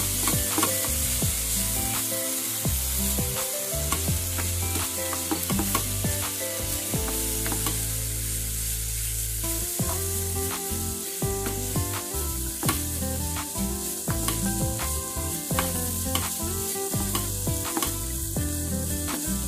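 A wooden spatula stirs shredded chicken with cabbage and carrots in a frying pan, clicking and scraping against the pan many times, while the vegetables sizzle steadily.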